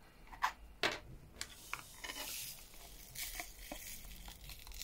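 Small rhinestones sliding and pouring out of a 3D-printed plastic diamond-painting tray into a plastic pot, a soft rattling hiss that comes in two spells. Two light plastic clicks from handling the tray come in the first second.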